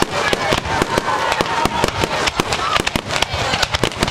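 Fireworks display with a dense, rapid crackle of sharp pops, many a second and unbroken, with a few thin whistling tones.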